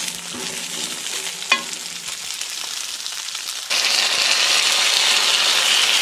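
Sausages, onion and garlic sizzling in a hot frying pan, with one light metal clink about a second and a half in. Near the middle the sizzle jumps suddenly louder and hissier as baked beans are poured from a tin into the pan.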